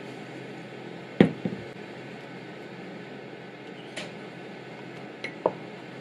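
Light knocks and clinks of kitchenware on a ceramic mug over a steady low hiss: a sharp knock about a second in followed by a smaller one, a light tap near four seconds, and two quick clinks near the end, the second ringing briefly like a spoon striking the mug.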